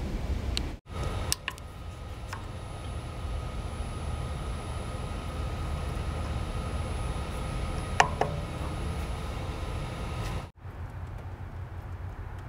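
A Char-Griller Gravity 980 charcoal smoker running, a steady low rumble with a faint high whine from its combustion fan. A single sharp click comes about eight seconds in, and the sound cuts out briefly twice.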